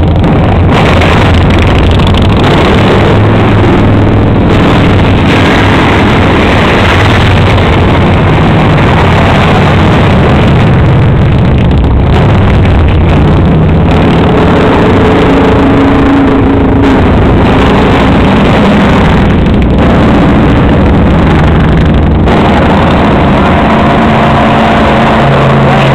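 Loud, continuous engine sound of a line of cruiser and touring motorcycles riding past one after another, several engines heard at once with their pitch shifting as each bike goes by.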